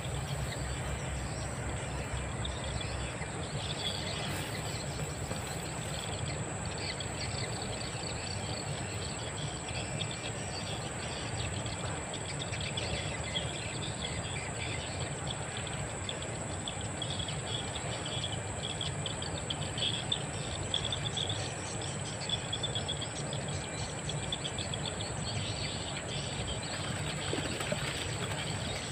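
Insects chirring steadily, with a constant high-pitched drone and scattered birds chirping, over a low steady rumble.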